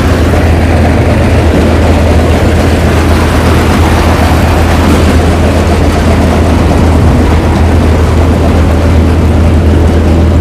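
Vikas 325 tractor-mounted mini combine harvester running for a demonstration: the tractor's diesel engine drives the threshing drum, belts and fan in a loud, steady drone with a strong low hum.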